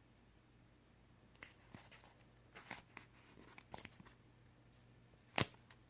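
Quiet handling noises: scattered soft rustles and light taps as a homemade foam squishy and its packaging and paper tag are handled, with one sharper tap about five seconds in.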